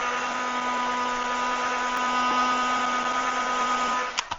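Hot-air dryer blowing on freshly airbrushed lure paint to dry it: a steady motor whine over a rush of air. It is switched off with a click near the end.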